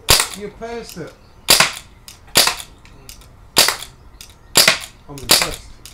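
Air rifle firing pellets in quick succession: about six sharp, short cracks roughly a second apart.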